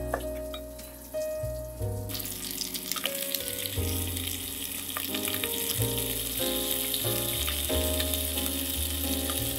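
A few knife knocks on a wooden cutting board, then from about two seconds in pieces of pork, bacon and sausage sizzle steadily as they fry in fat in a steel pot. Background music with a steady bass plays throughout.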